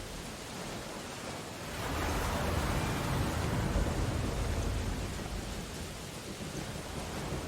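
Steady rain on window glass, with an ocean wave surging and crashing about two seconds in, swelling for a few seconds and then fading back into the rain.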